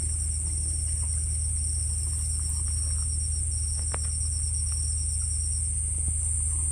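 Night insects calling: a steady high-pitched buzz together with a fast pulsing cricket-like trill that stops shortly before the end, over a steady low hum, with one faint click about four seconds in.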